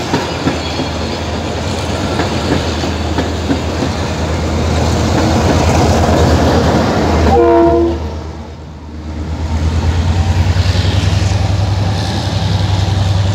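Passenger train running on the rails with a steady rumble and wheel clatter. A short train horn blast sounds about seven and a half seconds in, then a rhythmic pulsing rumble builds up.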